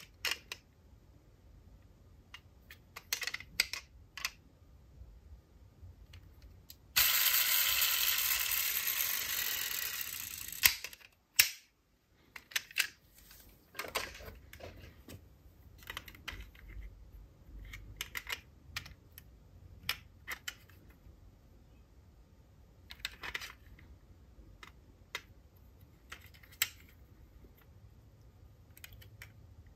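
Scattered light clicks and taps of small diecast toy cars and their packaging being handled. About seven seconds in, a loud hiss-like noise runs for a few seconds, fading, then stops, followed by two sharp clicks.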